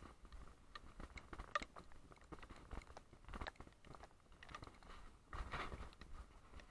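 Faint crackling and light clicks of wheels rolling over wet paving stones, with a brief low rumble near the end as they cross grooved tactile paving.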